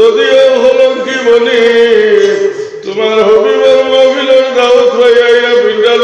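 A man's voice chanting in long, held melodic lines, in the sung style of a Bengali waz sermon, with a brief pause about three seconds in.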